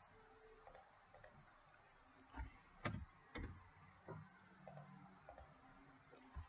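Faint, scattered clicks of a computer mouse and keyboard, about eight in all, the loudest in the middle.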